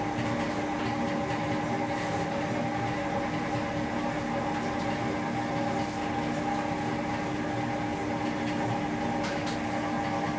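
Steady hum of bakery machinery with several even tones, and a few faint clicks of metal baking trays being handled.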